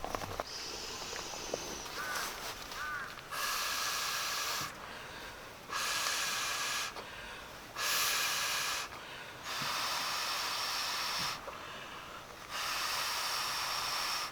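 Air hissing in five long, even strokes about two seconds apart, like something being pumped or blown up by hand.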